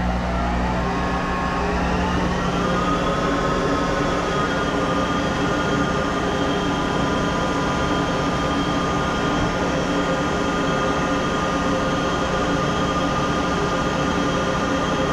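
Monarch 10EE toolroom lathe starting up: the drive's whine rises in pitch over the first two to three seconds as the spindle comes up to speed, then holds a steady hum.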